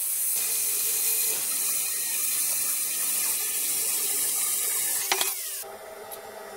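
Angle grinder with a thin cut-off disc cutting through a steel flat bar held in a vise: a loud, steady, hissing grind. About five seconds in there is a sharp clank and a short falling whine, then the sound cuts off.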